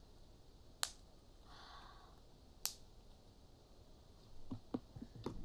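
Homemade slime being worked by hand, making faint sticky clicks and pops: two sharp clicks about two seconds apart with a soft squish between them, then a quick run of small pops near the end.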